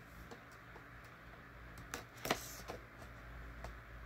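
Faint handling noise: a few light clicks and taps of objects being handled, with a sharper click a little past two seconds in.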